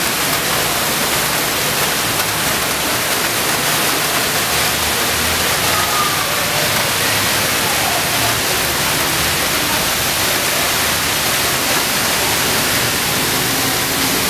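Heavy rain pouring onto a flooded street with runoff water rushing along it: a loud, steady hiss.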